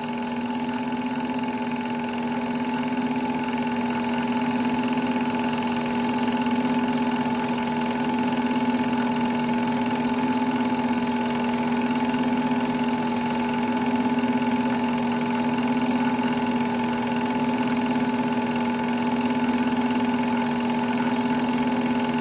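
Sears Tower movie projector running as it shows a reel of home-movie film: a steady motor hum with a slight waver.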